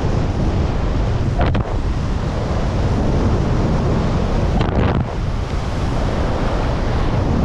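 Wind buffeting a skier's camera microphone while skiing fast downhill, over a steady hiss of skis sliding on snow. Two brief louder swishes come about a second and a half in and near five seconds.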